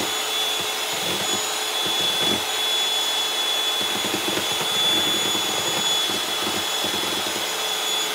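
Electric hand mixer running at a steady speed, its beaters whipping foamy egg whites in a plastic bowl, with a constant motor hum and a thin high whine.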